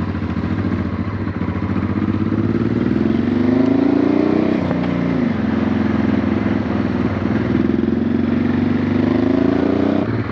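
Honda Transalp V-twin motorcycle engine running under way at low speed, the revs rising for a couple of seconds, dropping about four and a half seconds in, then climbing again near the end. The freshly refitted header pipes are not sealing properly for lack of a new exhaust gasket.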